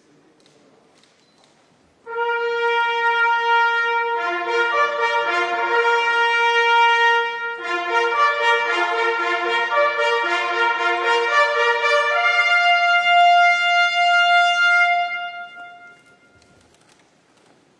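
Brass band playing a slow ceremonial fanfare of long held chords, several notes sounding together and changing in steps. It starts about two seconds in and fades out near the end.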